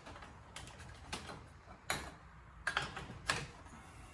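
A handful of separate sharp clicks and light knocks at uneven intervals, from tools and parts being handled while a chainsaw is readied for a compression test.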